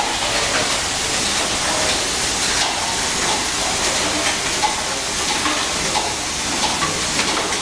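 Industrial egg breaking and separating machine running: a steady hissing machine noise with scattered light clicks as eggs move over the roller conveyor.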